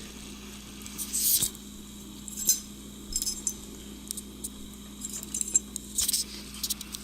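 Light clinks and ticks of small hard objects being handled, scattered irregularly, over a steady low hum.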